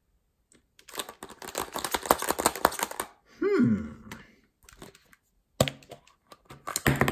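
Rapid clicking and rattling of hard plastic as a toy claw grabber lifts a plastic surprise egg, then a few sharp plastic clicks near the end as the egg is taken in hand and pried open. A short tone that rises and falls is heard about halfway.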